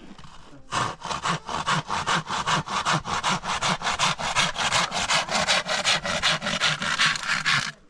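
Fast, even back-and-forth scraping strokes, about five a second, like hand sawing. They start about a second in and stop suddenly near the end.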